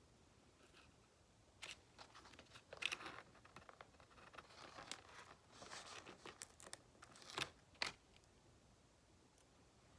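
Faint, intermittent crinkling and tearing rustles with a few sharper ticks from hands handling and applying small craft decorations, loudest about three seconds in and again near the end.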